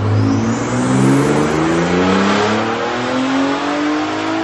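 Ford Raptor's 3.5-litre twin-turbo EcoBoost V6, fitted with a big-turbo kit, pulling under full load on a chassis dyno: the engine note climbs steadily in pitch through the run, with a thin high whistle rising quickly over it in the first second or two.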